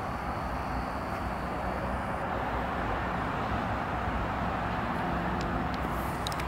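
Steady outdoor background noise at an even level, with a faint high whine in the first two seconds and a few faint ticks near the end.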